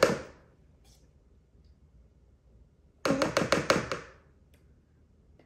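A spoon knocked rapidly against the rim of a bowl, about five sharp taps in under a second about three seconds in, shaking a spoonful of ghee off into the dough mix.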